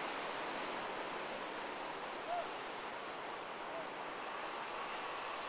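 Steady rush of surf and wind, with two faint short chirps a little after two seconds and near four seconds in.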